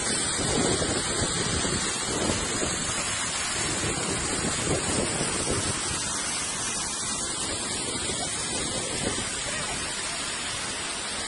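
Waterfall cascading down a cliff face: a steady rush of falling water, with uneven low rumbles of wind on the microphone.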